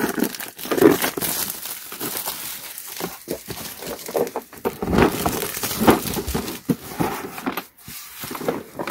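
Clear plastic shrink wrap crinkling irregularly as hands pull it off a hard plastic tool case, with short clicks and light knocks as the case is handled.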